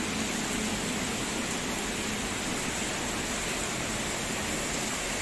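Heavy rain pouring down, an even, unbroken hiss.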